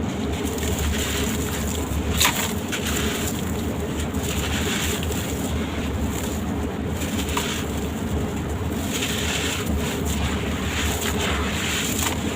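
Gritty crunching of sand-cement shapes being crumbled, in uneven patches, with one sharp crack about two seconds in, over a steady low hum.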